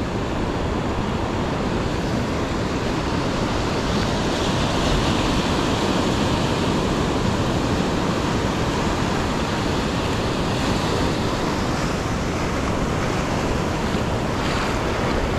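Ocean surf breaking and washing up a beach in a steady rush, swelling a little a few seconds in, with wind on the microphone.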